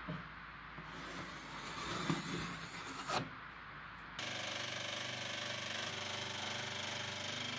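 Scratching and rubbing of a marking tool drawn along a plywood plank, with a couple of sharp knocks. About four seconds in, a scroll saw starts running steadily, cutting the plank.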